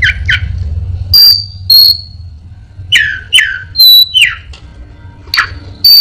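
Caged Anis binbin songbird singing short, sharp whistled phrases about every half second. High piercing notes alternate with quick falling whistles. The bird is known as a mimic, and its song is built from copied calls of other birds.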